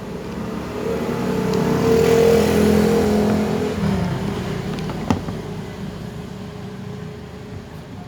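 A motor-vehicle engine swells to its loudest about two seconds in and then slowly fades, as of a vehicle passing by. A single sharp click comes about five seconds in.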